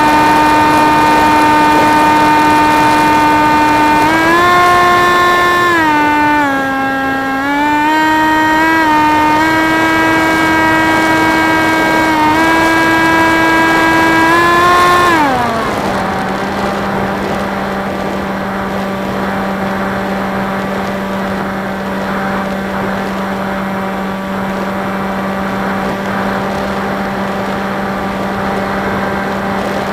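Electric motor and propeller of a Theory Type W flying wing heard from its onboard camera: a steady pitched whine that steps up and down in pitch with the throttle, then glides down to a lower steady pitch about 15 seconds in as the throttle is eased back.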